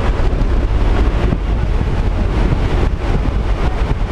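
Loud, steady rush of wind through the open door of a skydiving plane in flight, over the running of its engine.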